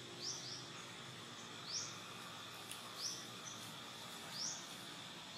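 A bird repeating a short, high, rising chirp about every second and a half, over a steady high insect drone.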